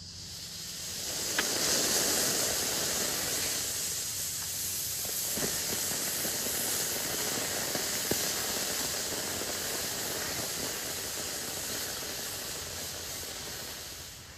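Small rocket motor firing on a static thrust-test stand: a steady, loud hiss that builds over the first couple of seconds and holds for about twelve more, with a few faint sharp pops, before tailing off near the end.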